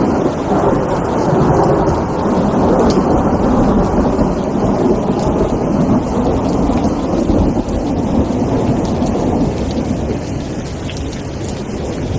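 Steady rain with a continuous low rumble of thunder, easing slightly near the end.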